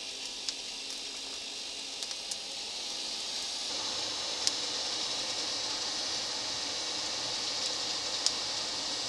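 Forge fire hissing steadily, louder from a few seconds in, with a few sharp crackles.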